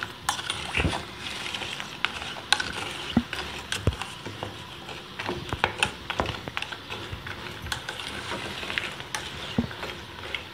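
A metal spoon stirring and scraping chunks of jaggery in water in a stainless steel pan, with irregular clinks of the spoon against the pan and the swish of the liquid.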